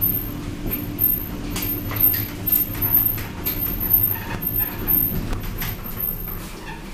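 1993 Tepper inclined traction glass elevator car running with a steady low hum and scattered clicks and knocks. The hum dies away about five seconds in as the car comes to a stop at the landing.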